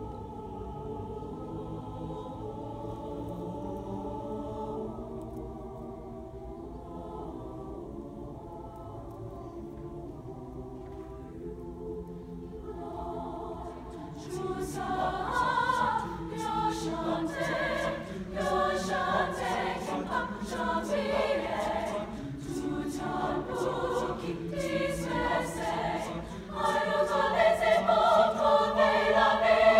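High school mixed concert choir singing: soft, sustained chords for about the first half, then after about fourteen seconds a louder, more rhythmic passage that swells louder again near the end.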